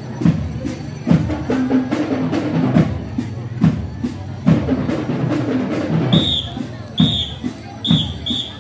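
School marching drum and bell-lyre band playing: drums and bass drum beat out a steady rhythm under a melody. In the last couple of seconds a single high note is struck again and again in short strokes.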